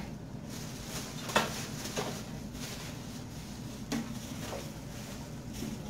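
A few soft knocks and clicks from plastic shopping bags and boxed purchases being handled on a table. The sharpest knock comes about a second and a half in.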